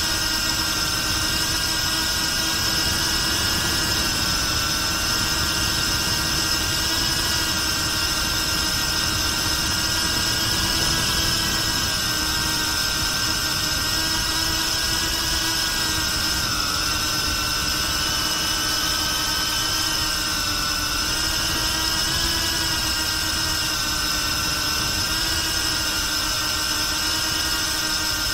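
BetaFPV Pavo360 ducted quadcopter's motors and propellers whining steadily in flight, heard close up from the camera mounted on the drone. A high, multi-tone whine sits over a rushing noise from the prop wash, and its pitch wavers slightly from about the middle onward as the throttle changes.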